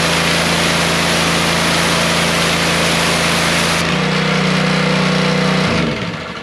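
Simpson gas pressure washer running, its engine droning under the hiss of the spray from the wand's white wide-angle tip. About four seconds in the spray cuts off as the trigger is let go, and the engine runs on alone for under two seconds before it is shut off and winds down near the end.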